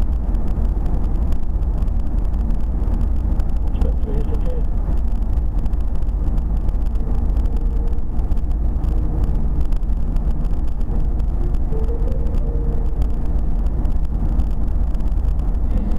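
Steady low road and engine rumble of a car cruising at motorway speed, heard from inside the cabin.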